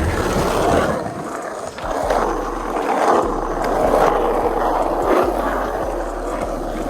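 Skateboard wheels rolling over rough pavement, with a few short clacks of the board.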